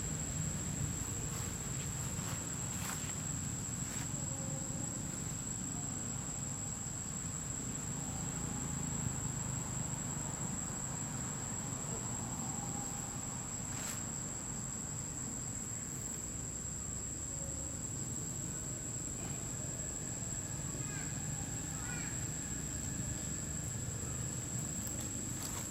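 Insects droning in the forest, one steady high-pitched tone that never breaks, over a low background rumble with a few faint clicks.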